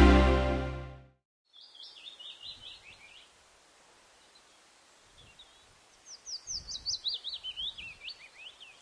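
Background music fading out in the first second, then a bird singing over faint outdoor hiss. A short run of quick high chirps comes first, and near the end a longer, louder series of rapid chirps that zigzag downward in pitch.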